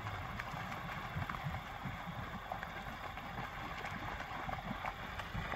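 Wind rumbling on the microphone in uneven gusts over a steady outdoor hiss.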